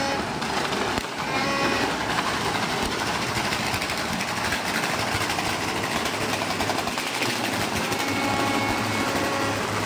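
Continuous din of firecrackers and fireworks across a city, a dense rapid crackle of pops and bangs. A held horn-like tone joins near the end.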